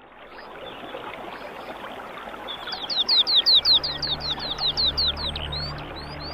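A songbird singing a fast series of high, downward-sweeping whistled notes, about five a second, starting a few seconds in and easing off near the end, over a steady hiss. A low sustained musical drone fades in about halfway through.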